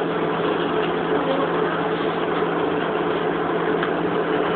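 Steady mechanical hum with a constant low drone and no changes.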